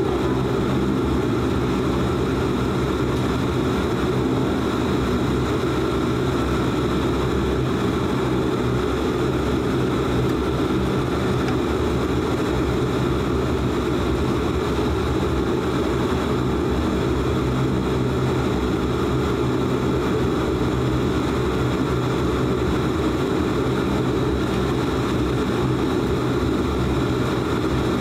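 Cabin noise of a DHC-8 Q400 turboprop airliner taxiing: its Pratt & Whitney Canada PW150A engines and six-blade propellers at taxi power make a steady drone with a low hum of several steady tones, heard inside the cabin.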